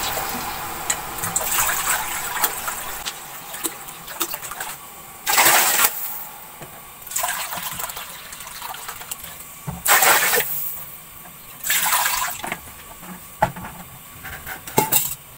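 Water being poured into a large steel pot of hot fried masala, splashing and sizzling, fading out over the first few seconds. Then several short splashing bursts, a second or two apart.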